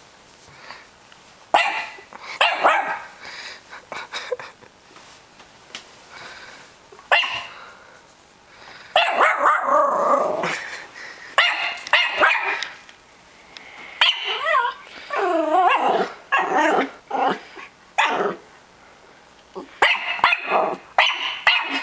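Norfolk Terrier puppy barking in repeated bouts, with a lull of a few seconds early on between them, at a balloon he has never seen before.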